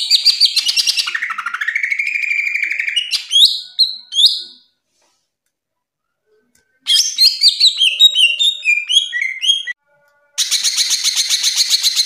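Greater green leafbird (cucak ijo) singing loudly in varied phrases: rapid trills and sweeping notes, a pause of about two seconds, a phrase of quick varied notes, another short pause, then a fast, even trill starting near the end.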